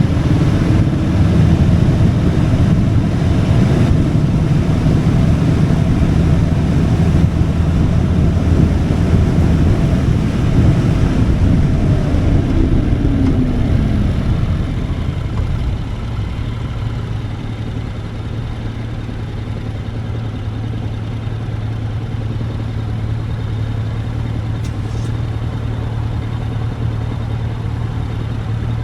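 Motorcycle engine running under way, its pitch falling as it slows about halfway through, then idling steadily and more quietly.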